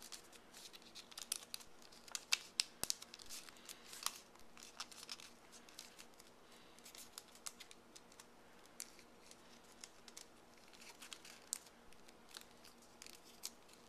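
Origami paper being handled and folded by hand: faint crinkling and crackling of the paper, with many small crisp clicks, busiest in the first half.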